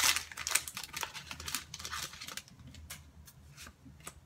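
Foil wrapper of a Pokémon booster pack crinkling and crackling in quick clicks as it is torn and pulled open, dying down to a few faint ticks about halfway through.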